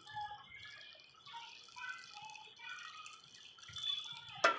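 Liquid dripping and trickling in short plinking drops of varying pitch, with a sharp click near the end.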